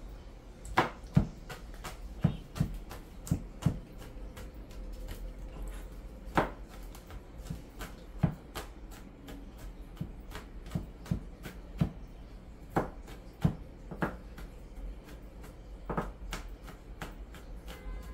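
Kitchen knife chopping garlic cloves on a cutting board: irregular sharp knocks of the blade on the board, a few every couple of seconds with short pauses.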